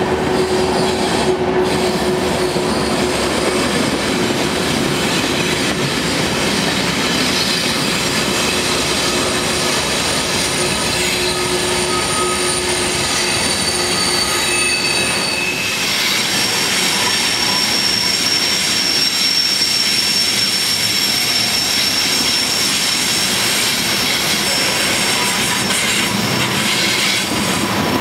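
Two freight trains of tank cars rolling past each other through a curve, steel wheels rumbling on the rails. The wheel flanges squeal against the rails in thin, steady high tones that come and go, with a new higher squeal setting in about halfway through and holding.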